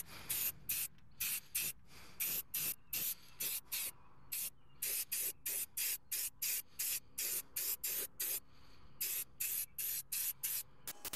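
Aerosol spray-paint can hissing in short, quick bursts, about three a second, as paint is sprayed onto a steel wheel, with a brief pause a little past the middle.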